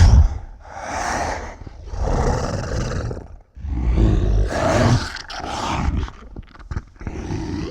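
Monster breathing and snarling sound effect: a run of heavy, growling breaths and snarls, each about a second long with short pauses between, the first the loudest.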